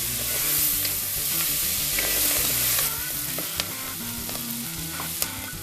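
Fenugreek leaves, onions and green peas sizzling in hot ghee in a pressure cooker while being stirred with a spatula. The sizzle is loud for about the first three seconds, then drops lower, with a couple of sharp clicks of the spatula near the end.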